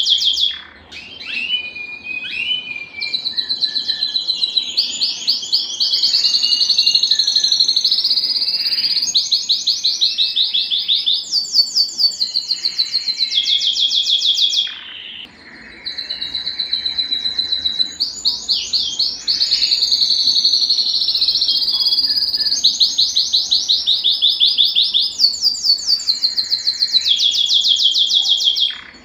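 Domestic canary singing a long song of rapid trills, each phrase a fast run of repeated high notes, switching to a new phrase every second or two, with a short break about halfway.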